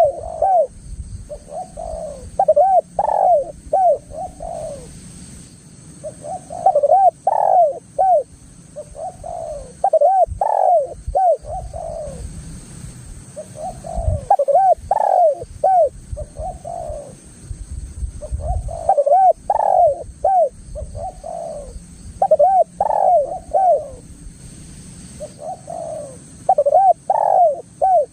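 Spotted dove (tekukur) cooing persistently, repeating a phrase of several short rising-and-falling coo notes every three to four seconds.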